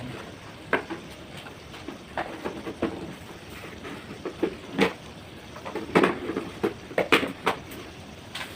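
Irregular knocks and clicks of kitchen utensils being handled and set down, about fifteen taps scattered unevenly, loudest around the middle and toward the end.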